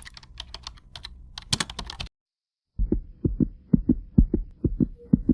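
Intro sound effects. About two seconds of rapid keyboard-typing clicks, a short silence, then a fast heartbeat with low thumps in lub-dub pairs a little more than two per second.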